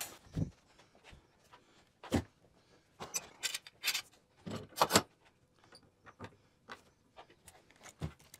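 Scattered light knocks and clunks of handling as a framing nail gun is set down on the wooden frame and picked up again, with two louder knocks about five seconds in.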